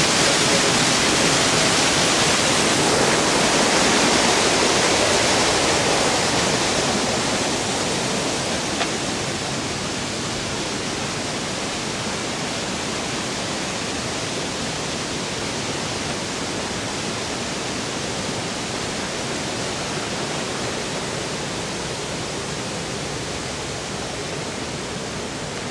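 Steady rushing of a fast-flowing, muddy river. It is loudest over the first several seconds, then eases to a lower, even rush from about nine seconds in.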